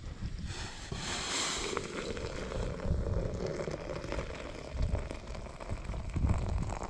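Hot water poured from a pot into a metal coffee percolator, splashing and filling it, with wind rumbling on the microphone throughout.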